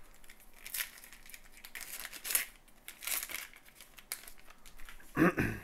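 Foil wrapper of a trading-card pack crinkling and tearing as the pack is handled and ripped open, in short scattered rustles with a louder burst near the end.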